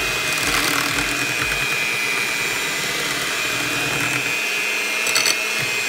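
Hamilton Beach electric hand mixer running steadily with a high whine, its beaters mixing eggs and vanilla into creamed butter and sugar in a glass bowl. A few brief clicks come about five seconds in.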